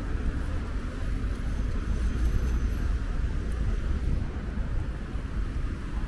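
City street ambience: a steady low rumble of road traffic passing on a nearby boulevard.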